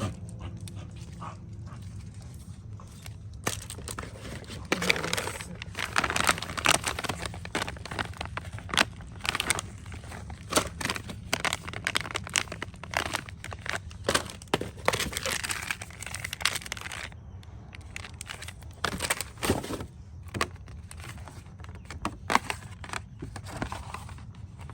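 Packaging being handled and opened: paper and plastic crinkling and tearing in irregular bursts, over a steady low hum.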